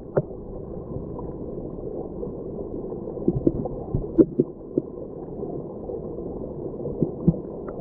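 Steady, muffled rushing of a creek and waterfall, with a few sharp knocks about three to four seconds in.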